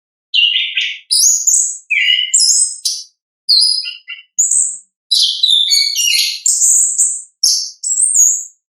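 Orange-headed thrush in full song: a long, varied phrase of quick high whistled and scratchy notes with brief gaps between them, starting about a third of a second in and stopping just before the end.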